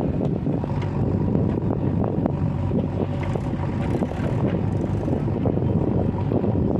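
Diesel engine of heavy earthmoving machinery running steadily under work, with a few light knocks over it.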